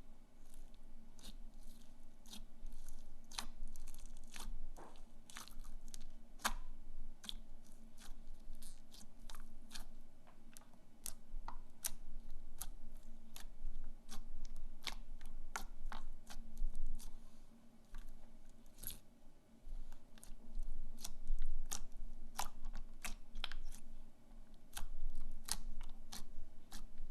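Slime being worked by hand, giving off irregular, crisp crackles and pops.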